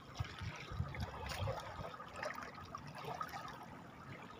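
Seawater lapping and trickling among the shoreline rocks, with soft low bumps scattered through.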